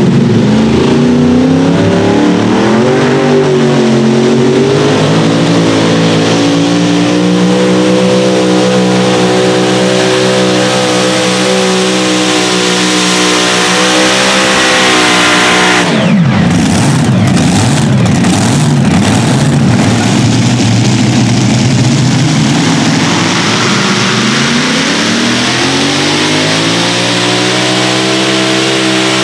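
The supercharged, methanol-burning V8 Hemi engines of the Four NoHemi pulling tractor at full throttle during a pull. The pitch rises off the line, then holds high and steady. About halfway through it breaks off abruptly into a few seconds of rough, uneven running, then climbs again to a steady high pitch near the end.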